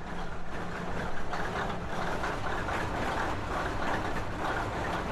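A train moving past close by: a steady noise of its wagons running on the rails, with a faint low hum underneath.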